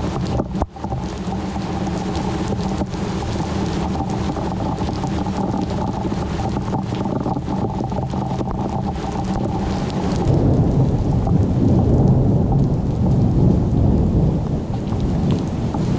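Thunderstorm: steady heavy rain under low rolling thunder, the rumble swelling louder about two-thirds of the way in.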